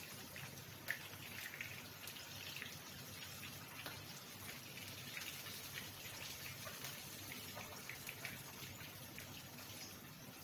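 Anchovy fritter frying in a pan of hot oil: a faint sizzle with scattered small crackles and pops. A single sharper tick about a second in.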